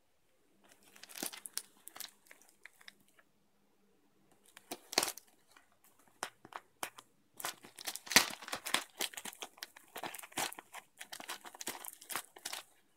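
Thin plastic mailer bag crinkling and rustling in irregular bursts as it is handled and opened, with a few sharper crackles; busiest in the second half.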